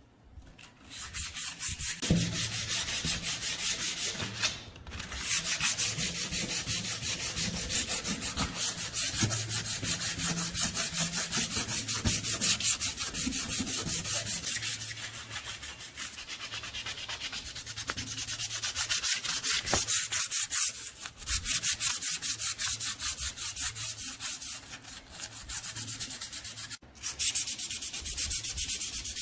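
Abrasive scrubbing on rusted metal: continuous rapid scratchy strokes, broken by a few brief pauses.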